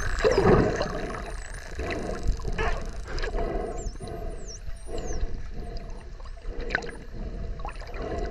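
Bottlenose dolphins whistling underwater: many high, thin whistles gliding up and down, overlapping one another, over a steady low rumble.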